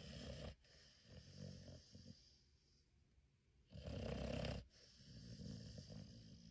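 Cane Corso dog snoring in its sleep: two loud, rough snores about four seconds apart, each followed by a softer breath.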